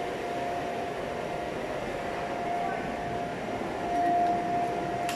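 Steady whirring machinery noise with a thin, steady whine that fades in and out.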